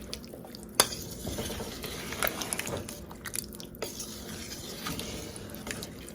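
A spoon stirring a pot of callaloo soup, clinking and scraping against the pot with scattered knocks, the sharpest about a second in.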